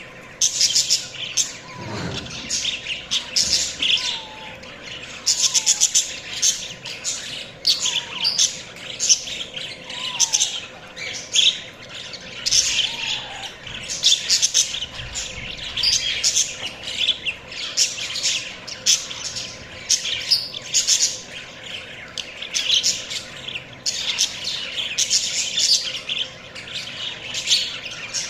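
Budgerigars chirping and chattering continuously in quick, dense runs of high-pitched notes.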